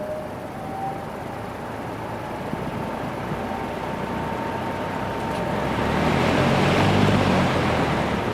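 Vintage Air King PL20P box fan with its two-speed GE motor starting up on low speed: the rush of air from the blades builds steadily, is loudest about seven seconds in, then eases slightly.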